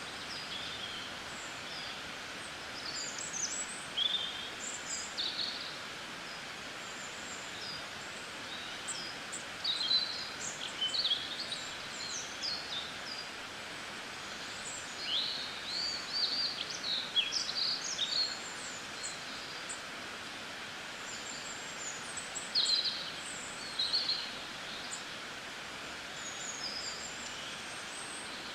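Small birds chirping in quick, high calls scattered throughout, over a steady background hiss.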